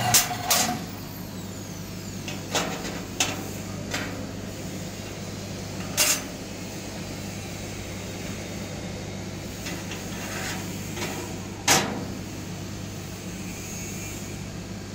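Sharp metallic clinks and taps as steel pliers and a small laser-cut 3mm stainless steel part knock against the stainless steel sheet, about seven in all, the loudest about 6 s and 12 s in, over a steady low hum.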